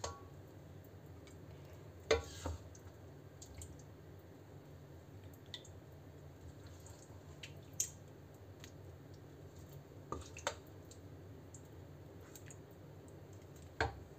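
Wooden spatula scooping saucy chicken curry out of a stainless steel wok onto a ceramic plate: soft wet squelches and a few light knocks of utensil against wok and plate. A low steady hum runs underneath.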